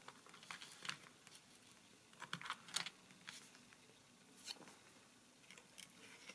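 Faint, irregular plastic clicks of a stylus turning the dials of a Checkbook Balancer, a small dial adding machine, entering a number clockwise on its subtract side.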